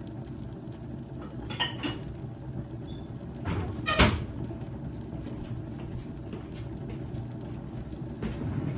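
Covered pot of sinigang boiling on a glass-top stove, a steady low bubbling noise, with a few light clinks a couple of seconds in and a sharper knock about four seconds in.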